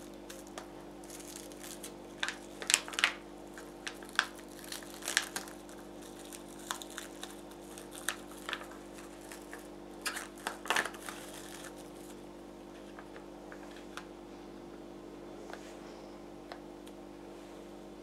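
Plastic cling film crinkling and crackling as it is unwrapped from a small glass, in an uneven run of rustles that thins out after about twelve seconds. A steady low hum sits underneath.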